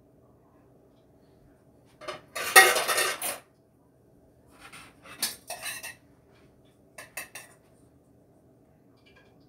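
Stainless steel pot and metal utensils clattering and clinking. A loud burst of clanking comes about two seconds in, more clinks follow around five seconds, and a few lighter clicks come near seven seconds.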